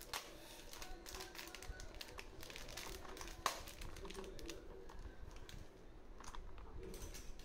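Plastic and foil food packaging handled: a wrapped utensil pouch is pulled off a ready-to-eat meal tray, with irregular crinkling and clicking and one sharp snap about three and a half seconds in.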